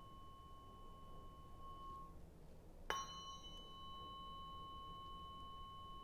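A tuning fork rings with a steady high tone that fades out about two seconds in. About three seconds in it is struck again with a sharp click and rings on steadily.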